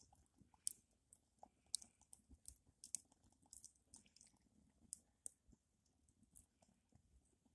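Wood fire crackling faintly, with irregular sharp pops and ticks.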